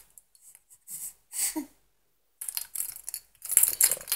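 Baby's plastic rattle clattering as it is shaken, in four or five short irregular bursts with gaps between them.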